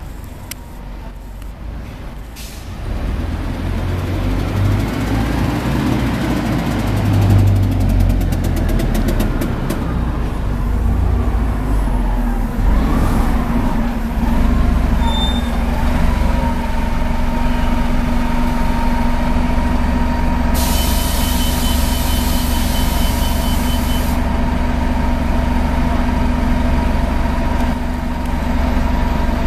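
New Flyer C35LF bus's Detroit Diesel Series 50G engine and Allison transmission running under way, the pitch rising and falling as it works through the gears, then settling into a steady drone with a high whine. About twenty seconds in, a burst of air hiss starts and stops abruptly after a few seconds.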